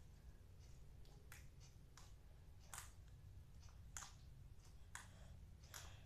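Faint scattered clicks and pops, about six, from a firm, hardened slime being pressed and pulled in the hands.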